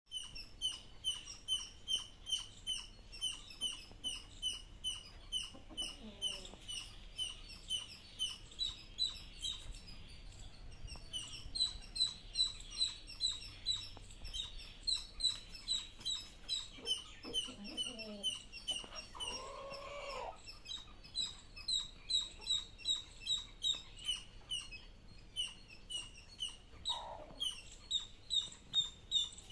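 Country chicken chicks peeping steadily, short high peeps about two to three a second, with a hen's lower clucking calls breaking in a few times, most strongly around twenty seconds in.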